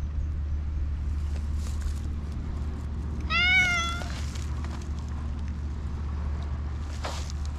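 A cat meows once, a single call of just under a second about three seconds in, rising in pitch and then holding. A steady low rumble runs underneath.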